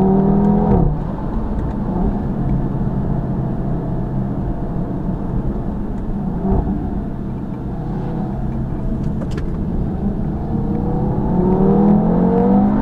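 2017 Audi TT RS's turbocharged five-cylinder engine through its sports exhaust. The revs drop off about a second in as the throttle is lifted, then it runs at light load under road and wind rush. Near the end it accelerates again, the note climbing in pitch.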